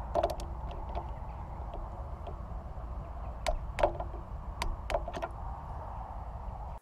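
Sharp metallic clicks and taps from hand tools on the Rotax 912 engine as its magnetic drain plug is refitted, torqued and lock-wired: two near the start and a cluster of about five in the middle, some ringing briefly. A steady low rumble runs underneath.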